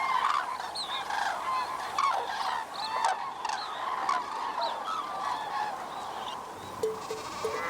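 A large flock of common cranes calling, many overlapping trumpeting calls at once. Music comes in near the end.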